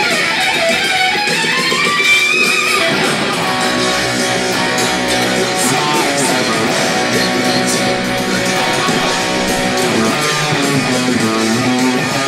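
Distorted electric guitar lead solo played on a Les Paul Custom-style guitar over a full band recording. It opens with rising bent and sliding notes, then breaks into fast runs of short notes.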